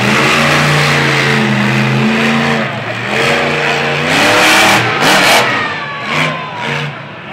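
Monster truck engine revving hard as the truck drives across the dirt track, its pitch rising and falling with the throttle several times and loudest a little past the middle.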